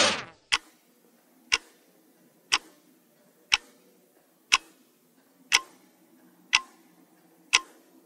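Countdown timer sound effect: a single clock tick once a second, evenly spaced, eight ticks in all.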